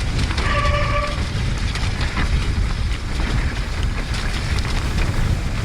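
Wind buffeting the camera microphone with continual rattling and knocking as an electric mountain bike rides down a wet, rocky trail, with a short squeal about half a second in.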